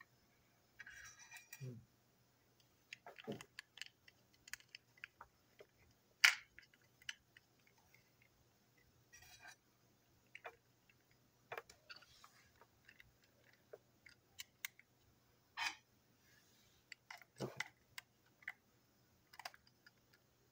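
Scattered light clicks, taps and knocks of a toy train's plastic body shell and chassis being handled and fitted together, with one sharper click about six seconds in.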